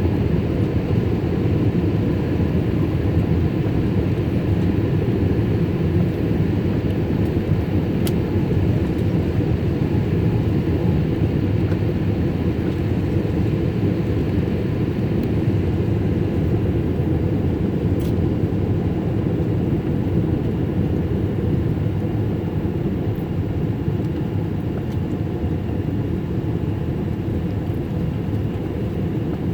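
Boeing 787 jet airliner in its climb after take-off: a steady, deep drone of engines and rushing air, heard inside the passenger cabin, easing slightly in loudness towards the end.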